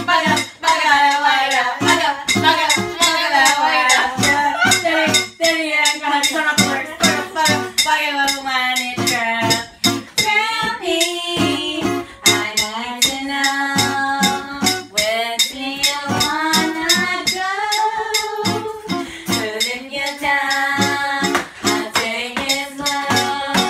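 Acoustic guitar strummed in a steady rhythm, with a group of women singing along.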